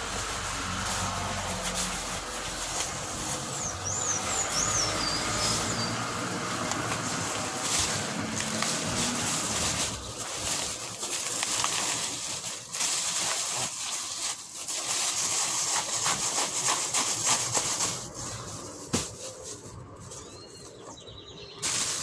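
Plastic carrier bag rustling and crinkling as heads of lettuce and chicory are pushed into it, with a brief bird chirp about four seconds in. The rustling thins out near the end.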